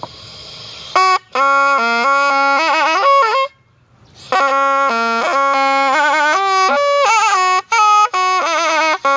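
Thai pi, a reed wind instrument, played solo in a melodic improvisation. It runs in phrases of held notes and quick wavering ornaments, with a breath pause partway through.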